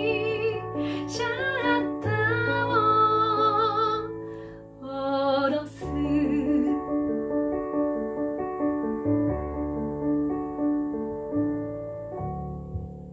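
A woman sings a slow Japanese ballad to her own piano accompaniment on a digital keyboard. Her last sung phrase ends about halfway through, and the piano plays on alone, fading out near the end.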